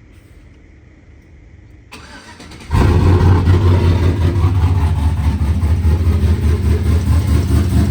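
Pickup truck engine started after a fresh oil change: the starter cranks briefly and the engine catches about three seconds in, then runs at a loud, steady idle.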